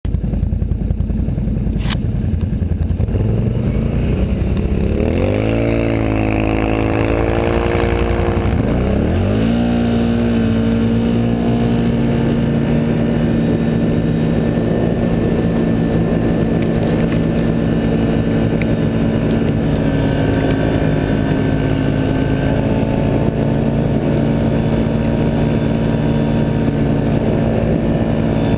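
Engine of a 2012 Can-Am Outlander 1000 XT ATV fitted with tracks, riding through snow. It revs up twice in the first ten seconds as it gets under way, then holds a steady engine note at cruising speed over a constant low rumble.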